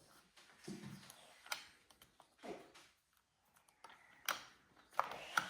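Faint, scattered clicks and light taps of a screw being turned by hand into the metal tube of a cat hammock frame, with the parts knocking as they are handled. A few louder clicks come near the end.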